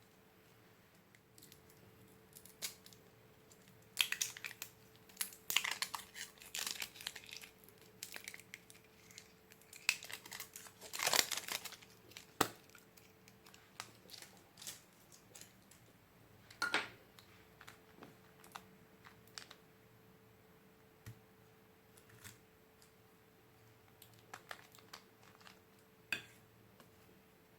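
Slime being worked by hand: scattered sticky crackles and pops, busiest about four to seven seconds in and again around eleven seconds, with single clicks later on. A faint steady hum sits underneath.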